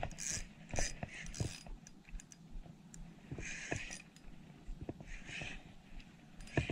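Spinning reel being handled and wound: scattered small mechanical clicks and rattles, with a few short hissy spells of winding.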